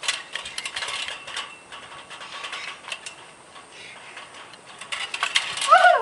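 Rapid, irregular clicking and rattling, in a burst at the start and again near the end, with a short bird call just before it ends.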